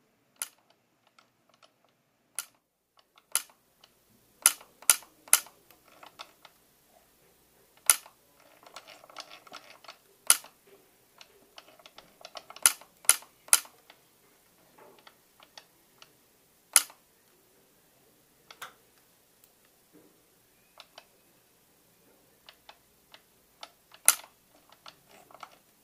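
Ellex Ultra Q YAG laser clicking sharply with each pulse as it is fired on a vitreous floater: about fifteen single shots at irregular intervals, sometimes two or three within a second, otherwise a few seconds apart.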